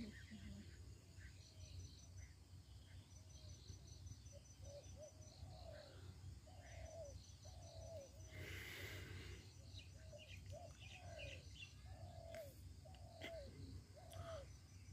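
A bird calling faintly outdoors, a steady series of short falling notes repeating more than once a second through the second half. A brief rush of noise about eight and a half seconds in.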